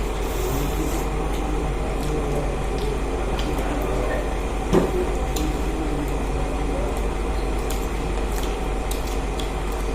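Steady low hum and background noise, with faint scattered clicks and one sharper knock a little before five seconds in.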